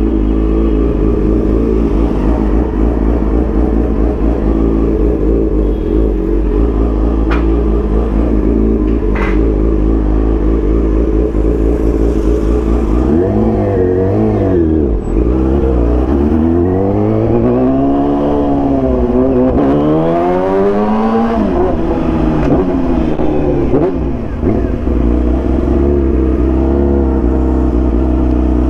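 Kawasaki ZX-10R's inline-four engine running under way at steady revs, then revving up and easing off three or four times in the middle before settling back to a steady run.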